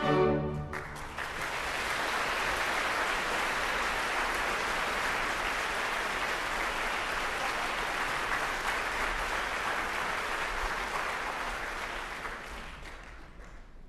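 The orchestra ends on a closing chord, then a theatre audience applauds steadily. The applause fades away near the end.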